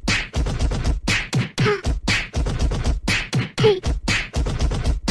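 Beat-driven music or vocal percussion: a fast, even run of sharp hits over a steady bass, with a short gliding voice-like sound repeating about every two seconds.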